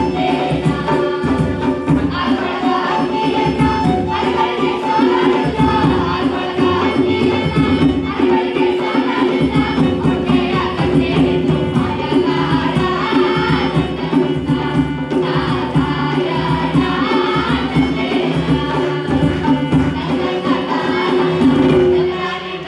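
A group of singers performing a song together over microphones, accompanied by hand drums (dholak and tabla) and a keyboard. The music dips briefly near the end.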